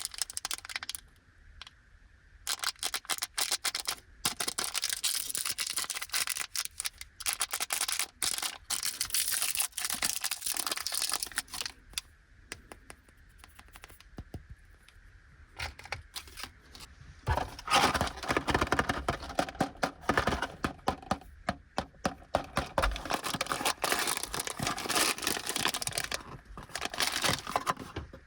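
Plastic snack wrappers being crinkled and torn open by hand, in clusters of crackling with short pauses between. The crinkling gets louder and denser about two-thirds of the way in.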